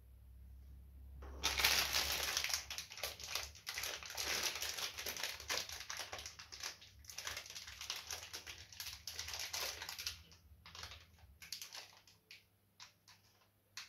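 Small clear plastic bags of mounting screws crinkling and rustling as they are handled and rummaged through. The crinkling is dense from about a second in and thins to scattered crackles near the end.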